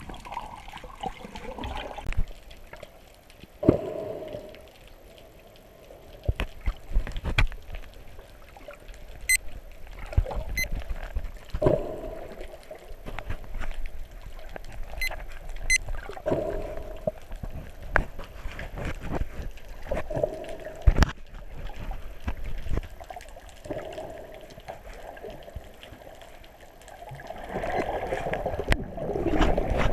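Muffled underwater sound heard through a GoPro's waterproof housing: water swishing and gurgling past the camera in surges every few seconds, with scattered knocks and clicks on the housing. The swishing grows louder near the end.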